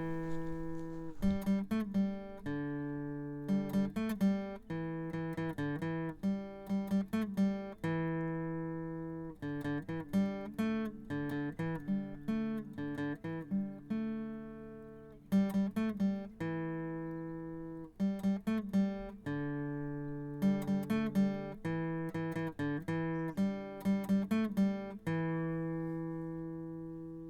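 Outro music: acoustic guitar picking and strumming chords, the last chord ringing out near the end.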